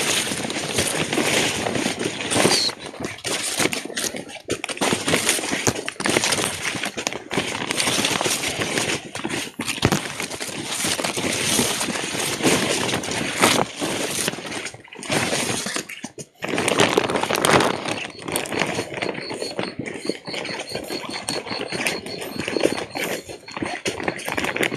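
Dense rustling and crackling of weeds and brush, with quick footsteps and jostling of the handheld phone, as someone moves fast along an overgrown channel bank.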